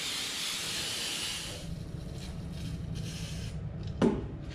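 Aerosol can of brake cleaner spraying in a long hiss onto greasy oil lines, stopping about a second and a half in. After that there is quieter handling noise, and one sharp clunk near the end.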